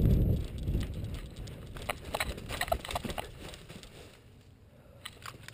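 A player's running footsteps on dry forest leaf litter, thudding heavily on the head-mounted mic for the first second. The steps give way to crackling leaves and rustling gear as he pulls up behind a wooden board, then it goes quieter with a few clicks near the end.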